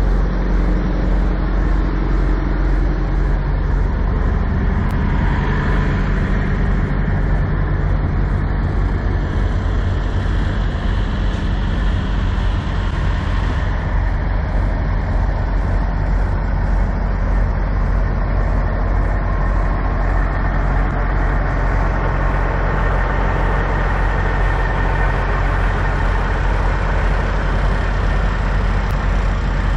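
Idling diesel engines of parked semi trucks, a steady low rumble with a constant hum. A closer engine hum stands out for the first few seconds.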